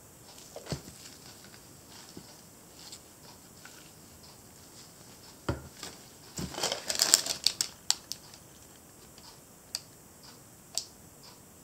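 Handling noises from a small elephant figurine moved by a gloved hand on a paper-covered counter: scattered light clicks and taps with soft rustling, a dense cluster of clicks and rustles about six to eight seconds in, and two sharp ticks near the end.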